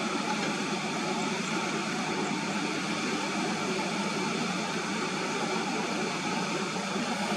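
Loaded SHACMAN F3000 dump truck driving away through loose, sandy soil, its Weichai WP10 inline-six diesel running steadily under load. The sound is an even noise with no clear engine note.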